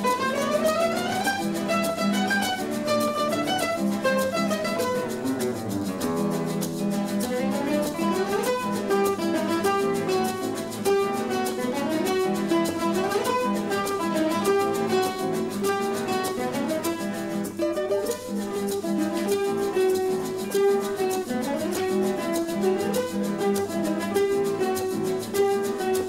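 Ensemble of classical guitars playing a piece together. Many notes are plucked at once, with quick rising scale runs, one at the very start, over a steady bass part.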